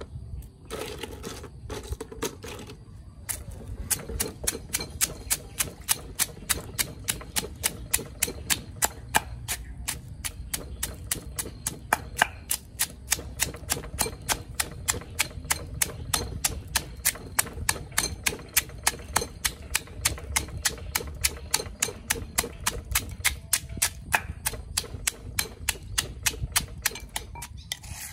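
Pestle pounding small crabs in a stone mortar, crushing their shells to a paste for soup. It makes a steady run of sharp knocks about three a second, starting a few seconds in.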